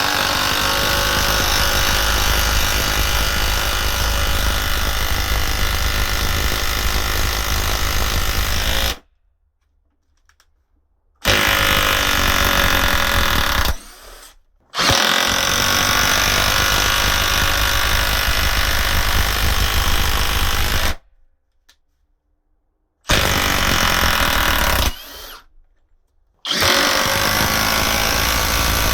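Compact half-inch cordless impact wrenches hammering a Spax T50 structural screw into stacked plywood. There is a long drive of about nine seconds, a short run of two to three seconds as the screw is backed out, a drive of about six seconds, another short backing-out run, and a third drive that starts near the end.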